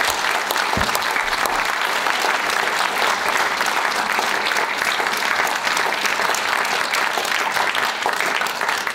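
Audience applauding: a sustained round of clapping from many hands that holds at an even level.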